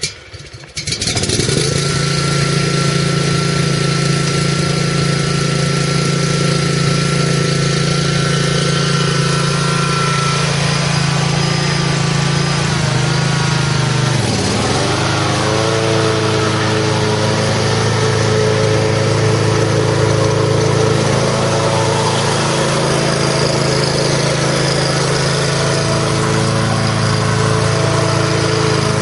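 A Scag 36-inch walk-behind mower's 17 hp Kawasaki engine catches about a second in and runs steadily. About halfway through its pitch glides, then it settles into steady running.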